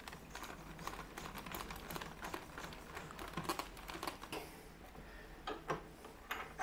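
Faint, rapid, irregular metallic clicks and taps of a bearing puller and hand tools being fitted and turned at a bench vise.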